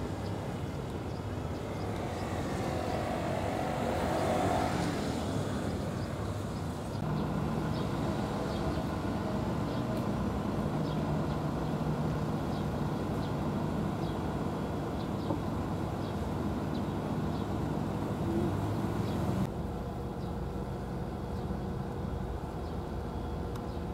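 Outdoor ambience of steady road-traffic rumble, with a vehicle passing about four seconds in. The background noise shifts abruptly twice.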